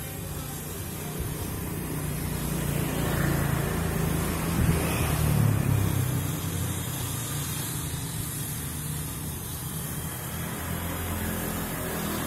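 Low, steady engine hum of a motor vehicle, swelling about three seconds in and easing off again after about six seconds.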